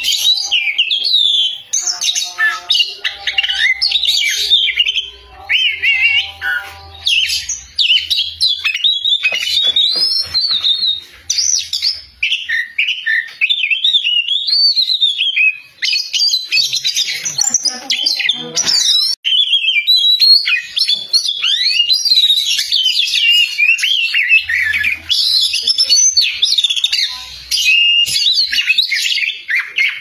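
Caged oriental magpie-robin singing loudly: a rapid, varied, near-continuous song of whistles, trills and chirps with only brief pauses.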